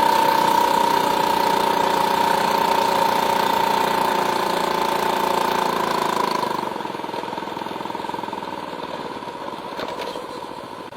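Small engine running steadily with a high, even drone; it drops off and grows quieter about six and a half seconds in.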